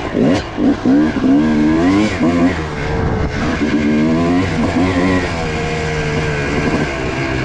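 Yamaha YZ250 two-stroke dirt bike engine revving under throttle, its pitch rising and falling several times, then holding steadier in the second half.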